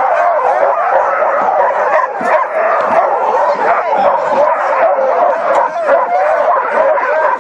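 A team of harnessed sled dogs barking together, many voices overlapping in a dense, continuous chorus. This is the din a stopped team typically makes while eager to run.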